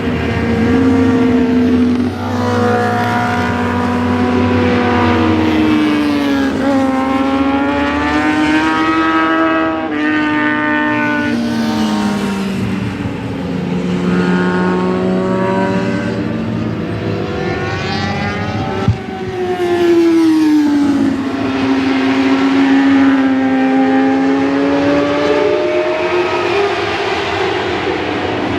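Racing motorcycles (superbikes, supermotards and naked bikes) passing one after another through a corner, their engine notes overlapping and repeatedly falling and rising in pitch as they slow and accelerate. There is one sharp click about two-thirds of the way through.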